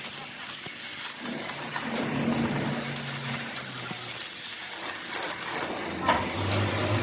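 Light metallic clinks and taps of metal parts being handled, over a low hum that comes and goes.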